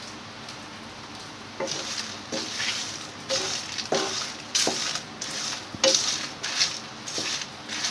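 Wooden spatula stirring whole spices dry-roasting in a kadhai. The dry seeds, bay leaves and chillies scrape and rattle across the pan in a string of short strokes, a little under two a second, starting about a second and a half in.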